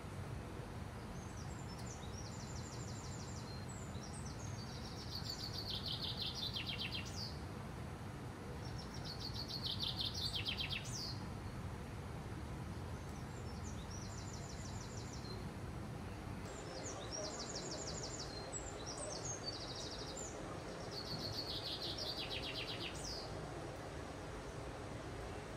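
A small songbird singing several rapid trilled song phrases, each a couple of seconds long with short pauses between, over a steady low outdoor rumble.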